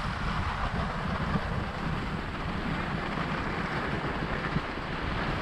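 Wind buffeting the camera microphone with a steady low rumble, over the continuous hiss of skis sliding across the snow.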